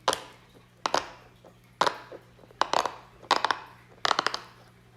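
Silicone pop-it fidget toy being pressed on its loud side: sharp pops, single ones about a second apart at first, then quick clusters of two to four in the second half.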